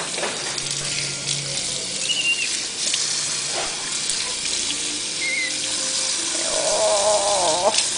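Tap water running steadily into a sink or tub, with a brief wavering pitched call near the end.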